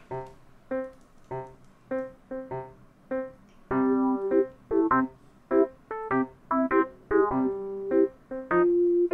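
Light, bouncy background music on a piano-like keyboard: a melody of short, separate notes, growing louder and fuller about four seconds in.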